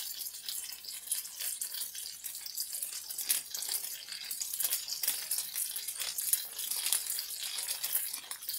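Bell pepper, onion and tofu skewers frying in olive oil in a pan: a steady sizzle with many small crackles and pops.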